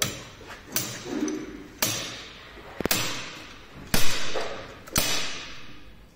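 Slide hammer pulling the rotor out of a Tesla Model S rear drive motor: six hard metallic strikes of the weight against its stop, about one a second, each ringing briefly.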